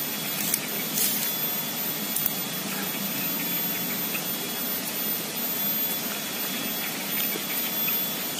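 Steady outdoor background hiss with no clear source, with a few faint clicks about half a second and a second in.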